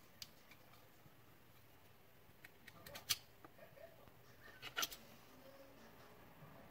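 Faint light clicks and clinks of small parts being handled on a workbench, with a few sharper single clicks: one about three seconds in and a double click near five seconds.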